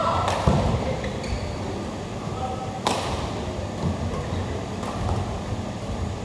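Badminton rackets striking the shuttlecock during a rally, two sharp hits: one right at the start and another about three seconds in.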